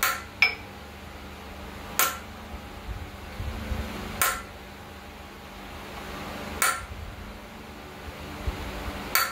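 Large ball-peen hammer striking a punch to drive a freeze (expansion) plug into a Graham engine block. There are six sharp metallic strikes, each with a short ring: two in quick succession at the start, then one every two seconds or so. The blows dish the plug's center so its edges push out and seal in the bore.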